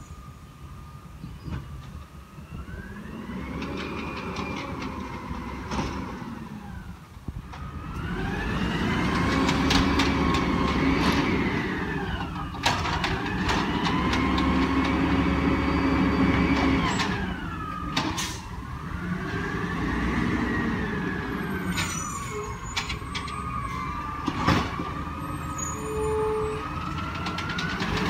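Peterbilt 320 garbage truck with an Amrep automated side-loader body working the curb: the engine revs up, holds and drops back about every four to five seconds as it drives the lifting arm, with sharp clanks of carts being handled. It grows louder as the truck comes closer.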